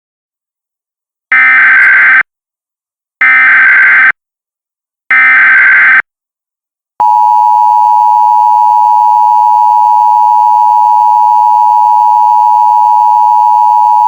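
Emergency Alert System alert opening: three short bursts of screeching digital data, the SAME header sent three times. After these comes a steady, loud attention tone, starting about seven seconds in.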